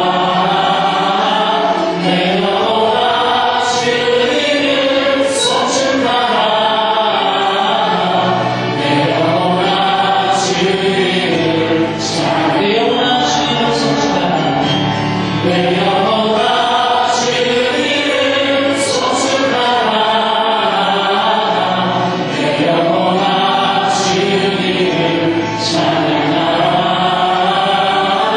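Church vocal ensemble singing a Korean gospel song through microphones, a woman singing into a handheld mic among the voices.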